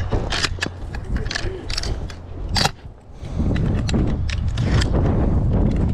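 Footsteps crunching on packed snow, mixed with irregular clicks and rattles of gear being carried. About three seconds in, a steady low rushing noise sets in.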